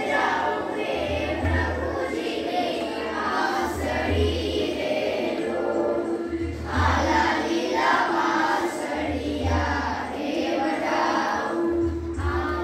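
A class of children singing a Gujarati folk song together, with a low beat recurring steadily underneath.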